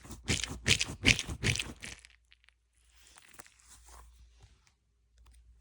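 Hands rummaging through and handling squishy toys in a box: a run of crinkling, crunching rustles for about two seconds, then only faint handling noises.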